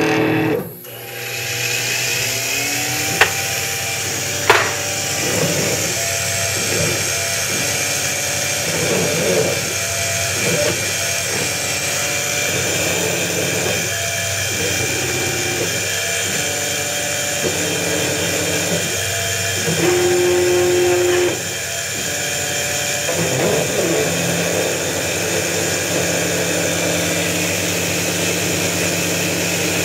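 CNC milling machine cutting 1018 mild steel with a quarter-inch ball end mill under flood coolant. The spindle and cut run steadily, and a machine tone swells and fades in a rhythm about once a second as the cutter makes its repeated passes. Two sharp clicks come a few seconds in.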